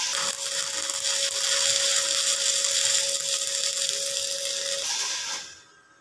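Stick (shielded metal arc) welding: the electrode's arc crackling steadily as a tack weld is laid, then cutting off about five and a half seconds in when the arc is broken.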